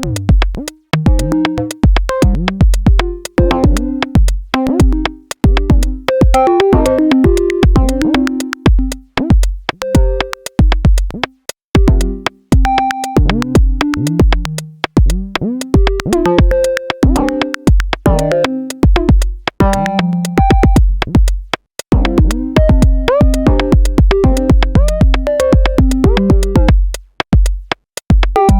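Software modular synthesizer patch in VCV Rack playing stepped synth notes quantized to a scale, some with short pitch swoops, over a drum-machine beat of kick pulses and fast clicking hits. The Moffenzeef Quad Deviant module's four outputs set the notes and vary the rhythm and timbre, and the beat drops out briefly a couple of times.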